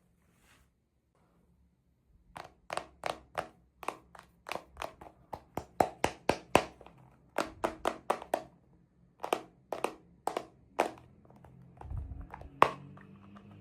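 Quick, irregular series of sharp taps and clicks, several a second, starting about two seconds in, from small toy pieces being handled and set down during unboxing.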